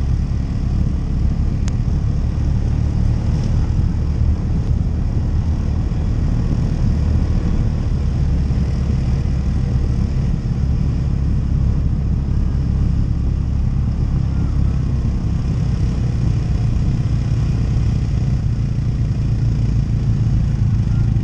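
ATV engine running steadily while being ridden: a continuous low rumble with no marked rise or fall in revs.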